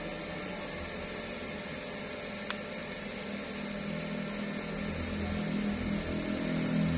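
Steady electrical hum over a background hiss, with a single short click about two and a half seconds in; a lower hum swells in from about halfway and grows louder toward the end.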